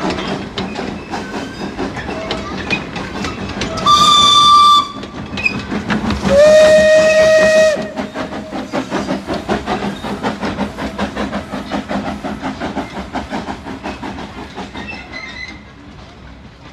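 Narrow-gauge saddle-tank steam locomotive pulling its train away. It gives two whistle blasts, a short higher one about four seconds in and a longer lower one about two seconds later. Its exhaust chuffs in a quick, steady rhythm throughout, fading as it draws away.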